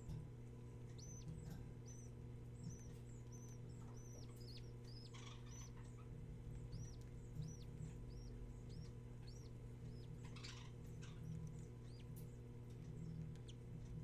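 Budgerigar chicks giving their begging cheeps while the hen feeds them: a run of short, high peeps, about two a second. A couple of brief rustles in the nest, over a steady low electrical hum.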